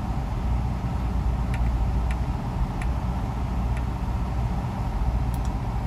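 Truck engine idling, a steady low rumble heard inside the cab, with a few faint light ticks.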